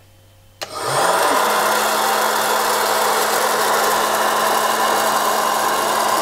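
Hot-air popcorn maker switched on with a click just over half a second in; its blower motor spins up over about a second to a steady hum with a loud, even rush of air.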